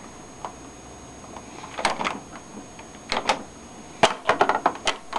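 Scattered sharp clicks and light knocks at an old IBM 14P CRT monitor that keeps shutting off after power-up: a couple near the middle and a quick run of them near the end.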